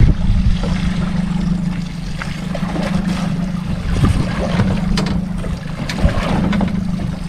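Small fishing boat at sea: a steady low hum with wind and water against the hull, and a few light knocks, while a hooked fish is reeled up on a conventional jigging reel.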